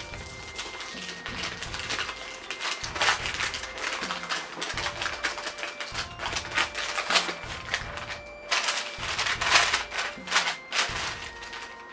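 Clicking, tapping and crinkling of packaging and small goods being handled, in clusters, with the loudest burst near the end. Light background music runs underneath.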